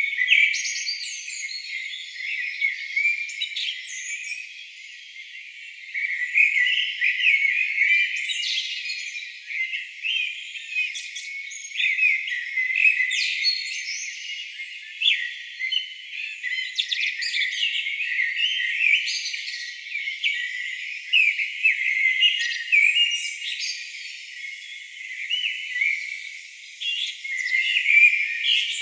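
Songbirds singing in a dense chorus, many short chirps and trills overlapping without pause. The sound is thin and high, with everything low filtered out.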